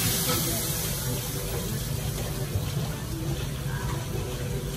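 Steady rushing noise of a commercial wok station: gas wok burners and the extractor hood running, with a low hum underneath.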